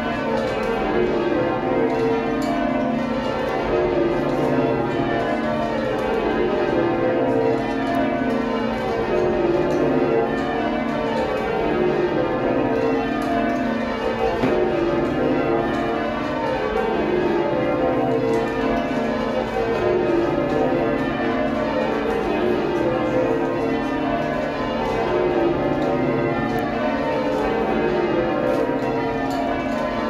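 York Minster's ring of twelve church bells, cast in 1925 with a 59 cwt tenor, rung full-circle by a band on ropes. The bells strike in quick, even succession, each row falling in pitch from the treble down to the heavy tenor, repeated row after row.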